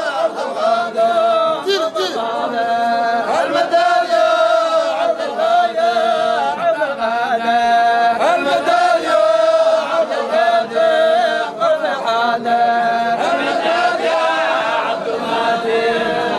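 A group of men chanting together in a Sufi hadrah, a devotional chant sung in unison with long held notes.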